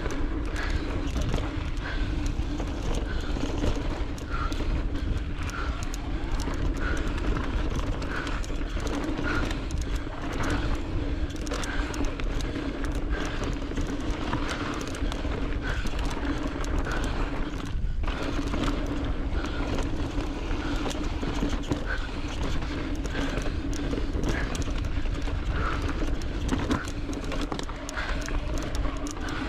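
Riding noise from a mountain bike descending a rocky dirt trail: steady wind rumble on the chest-mounted camera's microphone, with tyres crunching over dirt and stones and the bike rattling in many small knocks.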